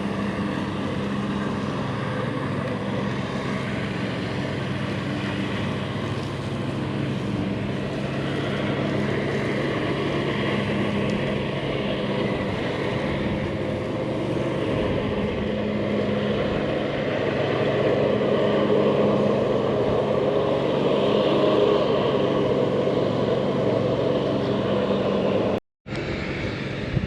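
A steady engine drone with a low hum, getting louder in the second half, with a brief total dropout near the end.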